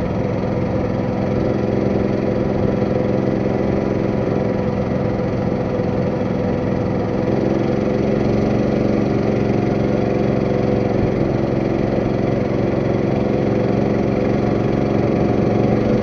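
Boat engine running steadily, picking up slightly about halfway through.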